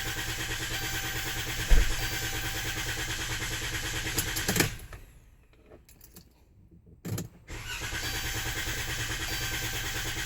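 Chrysler Town & Country van's starter cranking the engine without it catching; the cranking stops about halfway through, and after a short pause a new attempt starts. A hard-starting engine needing repeated tries.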